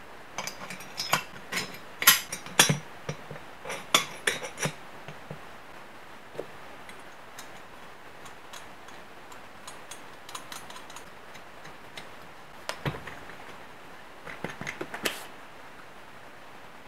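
Metal parts of a two-stroke cylinder clinking and tapping together as they are handled: a run of sharp clicks in the first five seconds, then another cluster about thirteen to fifteen seconds in.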